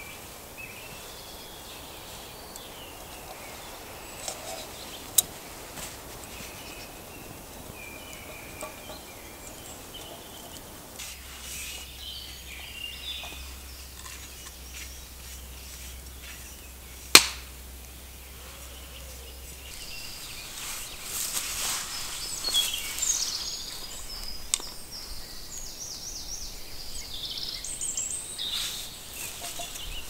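Forest ambience: birds singing here and there, more busily in the last third, with one sharp knock about halfway through as the loudest sound.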